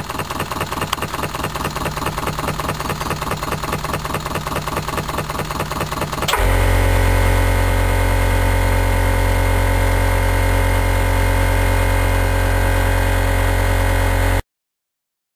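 Model twin-cylinder over-crank engine running on compressed air, its exhaust beating in a rapid, even rhythm. About six seconds in the sound switches suddenly to a louder, steady hum, which cuts off abruptly near the end.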